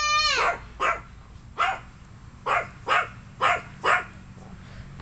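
A dog barking in short, sharp barks, about six of them, while guarding a plate of chicken. A long drawn-out cry fades out just at the start.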